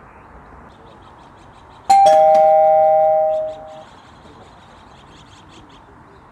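Two-note ding-dong chime, a higher note followed at once by a lower one, ringing out for about a second and a half before fading.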